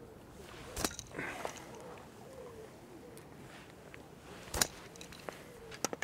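A pellet catapult fired three times, each a sharp snap of the released elastic and pouch, about a second in, after four and a half seconds and just before the end, sending loose-feed pellets out over the swim.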